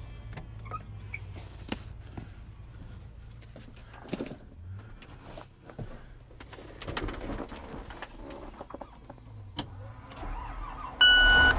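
An engine idling with a steady low hum, with scattered clicks and knocks over it. A short, loud beep sounds near the end.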